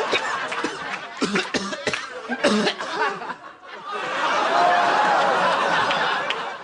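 Studio audience laughing, with a few short coughs about one to three seconds in, and the laughter swelling again near the end.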